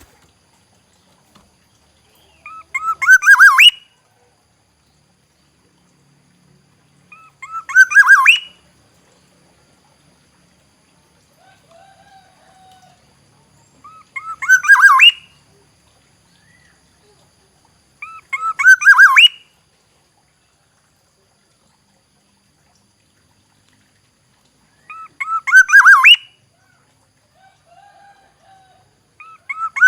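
Black-naped oriole calling: a quick run of short upswept notes ending in a louder rising note, repeated about every four to six seconds, six times. Fainter, lower notes come in twice between the phrases.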